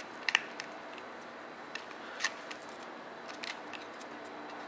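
Handling noise from a synthetic rifle stock: scattered light plastic clicks and taps as it is moved, the sharpest pair about a third of a second in.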